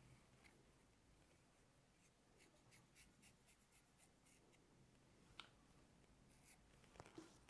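Very faint, short scratchy strokes of a dermaplaning razor blade scraping over facial skin, several in quick succession, with a few small clicks about five and seven seconds in.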